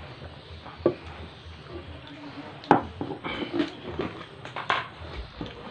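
Swallowing water from a drinking glass, then a sharp clink about two and a half seconds in as the glass is set down on the table, followed by a few short mouth and breath sounds.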